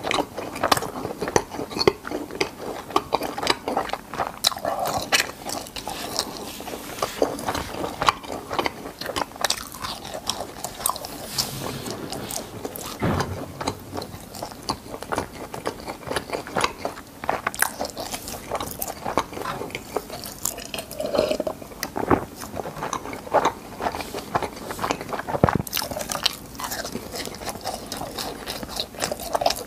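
Close-miked chewing of crispy fried cheese balls: a steady run of wet chewing with many small, irregular crackling crunches from the fried crust. The crunching grows denser near the end as a fresh piece is bitten.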